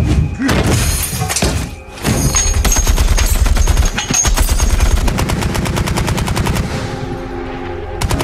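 Tank-mounted heavy machine gun firing long, rapid automatic bursts, with a brief break a little under two seconds in.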